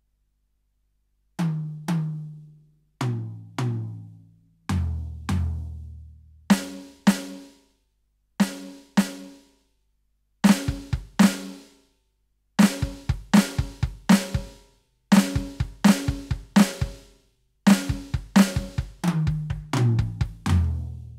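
Roland TD-17KVX electronic drum kit's module sounds: two strokes on each tom from high to low, then pairs of snare hits, then a kick-and-snare beat with hi-hat that ends in a quick tom fill.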